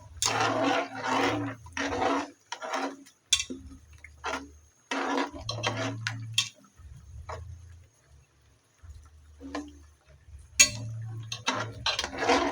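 Metal utensils knocking and scraping against a cooking pot in short, irregular bursts with pauses, with a few sharp clicks.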